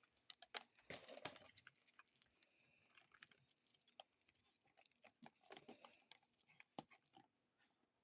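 Faint, scattered crackles and clicks of slime being squished and handled, with small bursts of crackling about a second in and again past the middle.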